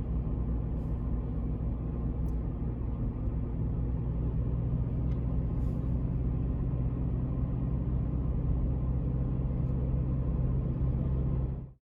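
Steady low rumble and hum of a running motor vehicle, with a few faint ticks, cutting off abruptly near the end.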